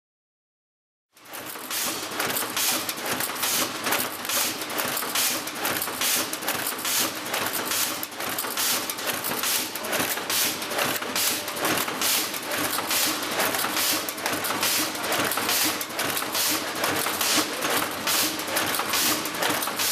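Automated number-plate production line running: a fast, regular mechanical clatter of the machine cutting and handling aluminium plate blanks, starting about a second in.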